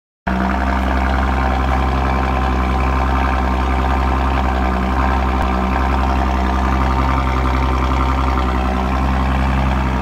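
Audi A7 3.0T's supercharged V6 idling steadily through an Armytrix cat-back valvetronic exhaust, a deep, even exhaust note that holds constant pitch without revving.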